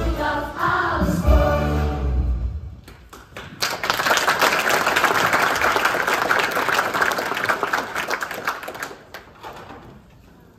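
Group singing over backing music ends about two and a half seconds in. After a brief lull the audience applauds for about five seconds, then the clapping dies away near the end.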